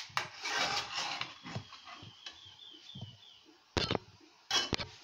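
Metal spoon stirring thick porridge in an aluminium pot, scraping against the pot's bottom and sides; the scraping is loudest in the first second or so and then fades. Near the end come a few sharp knocks.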